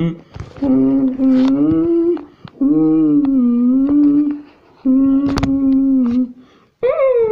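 A person humming in three long, slightly wavering held notes, then a shorter note that rises and falls near the end. A sharp knock sounds about five seconds in.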